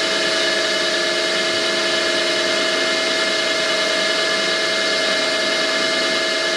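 Deckel G1L engraving machine's spindle running steadily, a whine of several steady tones over a hiss, as a 2.1 mm drill cuts the tap hole for an insert screw in a lathe toolholder.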